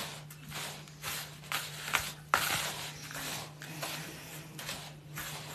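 Dry boilie ingredients being mixed together in a bowl: repeated scraping, rustling strokes about two a second, with one sharper knock a little past two seconds in.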